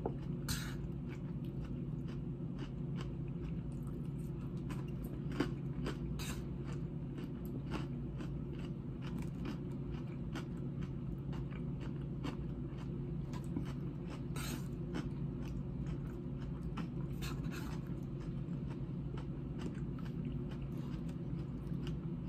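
Close-up chewing of a crisp salad of romaine lettuce, cucumber and croutons, with many small irregular crunches over a steady low hum.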